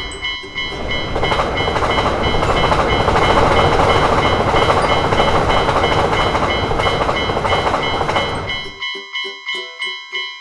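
A Japanese level-crossing warning bell ringing its steady 'kan-kan' rhythm while a train passes with a loud, even rumble. Near the end the train noise cuts off abruptly, leaving the bell ringing alone at about three strikes a second.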